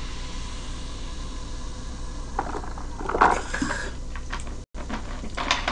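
Carbonated lemon-lime soda fizzing with a steady hiss that fades over the first couple of seconds. It is followed by plastic bottle handling noises: crackling, knocks and rustling, loudest about three seconds in, with a few more near the end.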